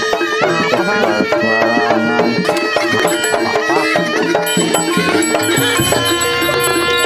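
Traditional Javanese barongan dance music: drums under a bending pitched melody.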